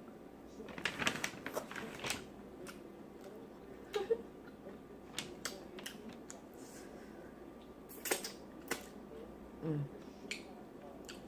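Close-miked mouth sounds of eating a seafood boil: wet lip smacking and chewing in scattered clusters of sharp clicks, the busiest about a second in and again about eight seconds in.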